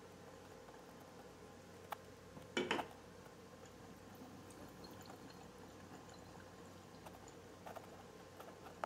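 Stündenglass gravity bong turned over by hand, with a short clatter about two and a half seconds in, then water trickling and bubbling faintly between its glass globes as it draws smoke in.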